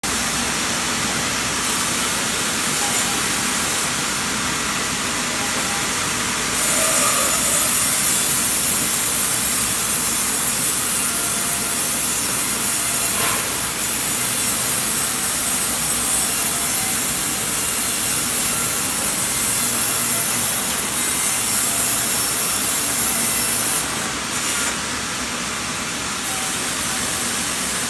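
Sawmill saw ripping timber lengthwise. It makes a steady harsh hiss that gets louder and brighter about a quarter of the way in and eases off a few seconds before the end.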